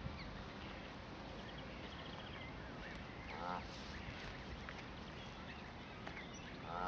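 Canada goose giving two short calls, one about three and a half seconds in and one at the end, with faint high chirps between them.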